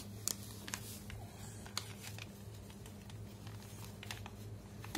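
Faint, scattered rustles and crinkles of a sheet of paper being handled by a toddler, over a steady low hum.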